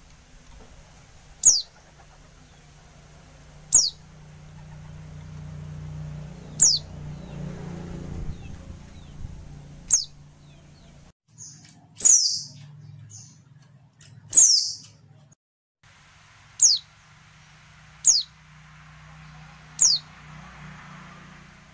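Female white-eye (pleci) calling: a short, high note that slides quickly downward, repeated about every two seconds, nine times. This is the female call used to prompt male white-eyes to sing.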